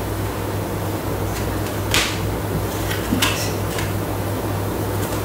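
A steady low mechanical hum, with a few soft rustles and light taps around two and three seconds in as lasagna sheets are handled and laid into foil trays.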